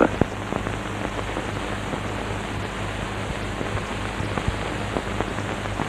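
Steady hiss with scattered faint crackles and a low steady hum: the background noise of an old film soundtrack.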